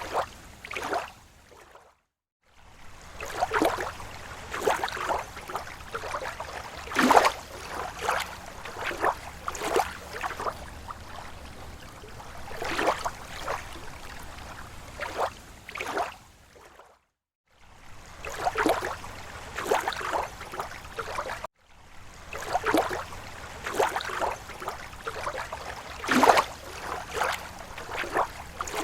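Lake water lapping against the shore in small, irregular splashes and slaps of slow waves. It cuts out briefly a few times.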